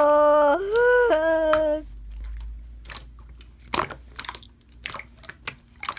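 A person's voice holds a long wavering hum for nearly two seconds, then there are scattered crunchy chewing and biting clicks close to the microphone.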